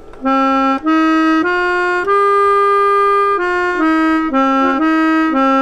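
Bontempi electric chord organ, its motor-blown free reeds playing a short melody of single notes on the keyboard with the airflow slider set to soft. About eight notes move up and down, and one is held longer in the middle; the tone is reedy, like an accordion.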